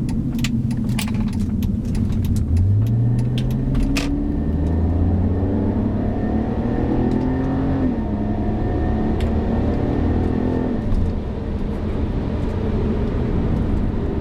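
2006 BMW 330ci ZHP's 3.0-litre inline-six pulling hard in manual-shift mode. The engine note climbs from about two seconds in, drops at an upshift about eight seconds in, climbs again, then falls away as the throttle lifts near eleven seconds in.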